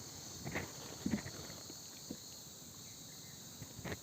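Faint steady chirring of insects, with a few soft taps and clicks about half a second, a second and four seconds in.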